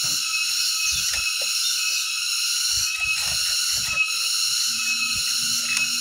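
Steady hiss throughout, with a few soft knocks and taps as a small plastic water tub is handled and set into a bird cage.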